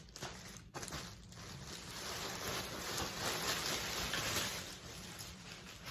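Rustling of the wrapping around a handbag as it is unpacked from its shipping box, a steady soft hiss that swells a little in the middle.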